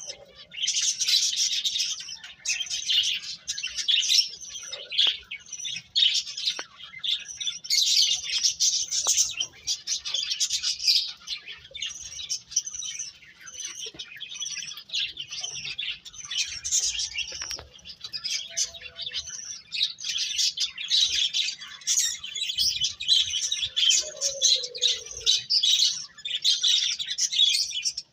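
Small birds chirping in a fast, continuous, high-pitched chatter of overlapping tweets.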